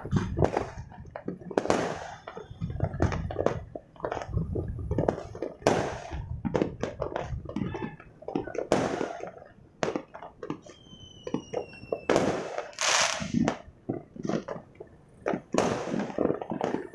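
Many fireworks going off across a city: a dense, irregular run of bangs and pops, loud and faint, with a brief thin whistle a little before the middle.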